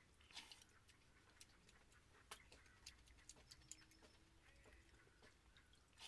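Faint, irregular wet clicks and ticks of eating by hand: fingers working water-soaked rice (basi pakhala) in a steel pot and lifting it to the mouth.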